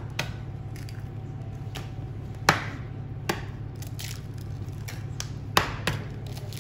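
Eggs tapped and cracked against the rim of a stainless steel bowl: a few sharp taps, the loudest about two and a half seconds in, over a steady low hum of room noise.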